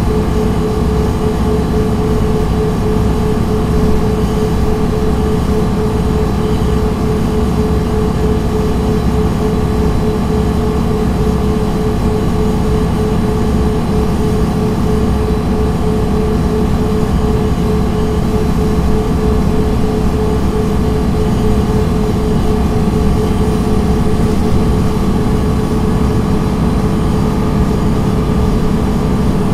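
MAN NG 313 articulated bus with a Voith automatic gearbox, heard from inside the passenger cabin, running steadily: a constant heavy rumble with a steady whine over it.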